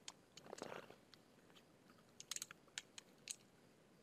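Near silence: room tone with a few faint, short clicks, a small cluster of them a little over two seconds in.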